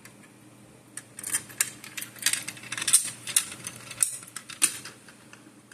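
Keys clinking and tapping against a metal fire alarm pull station: a string of irregular sharp clicks and jingles, loudest about three seconds in.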